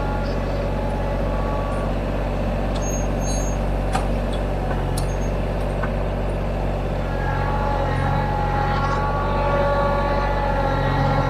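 TYM T313 sub-compact tractor's diesel engine running steadily while it works a front-end loader, with a couple of short sharp knocks near the middle. About two-thirds of the way in, the engine grows louder and its note rises.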